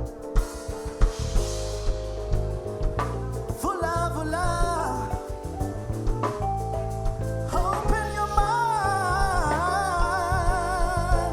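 Live band playing a slow, steady groove of held chords, bass and light percussion. A singer comes in about three and a half seconds in with long held notes sung with vibrato, breaks off, and comes back in past the middle.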